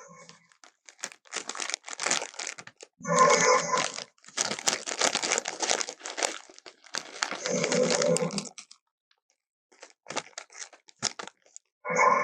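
Homemade Albertosaurus sound effect of feeding: bursts of crunching and tearing, broken three times by a short growl-like call.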